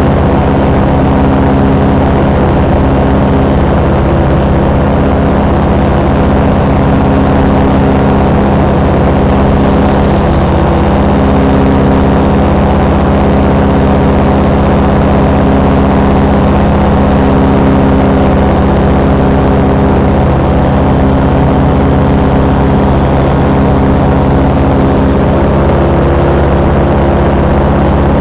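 FB 122 paramotor two-stroke engine and propeller running loud at a steady throttle in cruising flight, its pitch holding nearly constant throughout.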